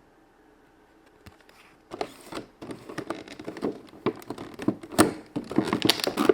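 Hands handling plastic toy pieces and their packaging: a run of rustles, clicks and taps that starts about two seconds in and gets busier towards the end.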